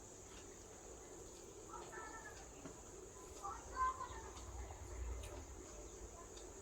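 Quiet eating: faint mouth and chewing clicks over a steady high hiss, with brief faint pitched sounds about two seconds in and again near four seconds.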